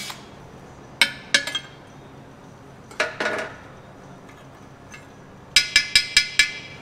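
Cast aluminum clinking against cast aluminum as the cut-out shelf is worked free of the cut-open intake manifold. There are a few sharp clinks about a second in, a short scraping clatter about three seconds in, and a quick run of five knocks near the end.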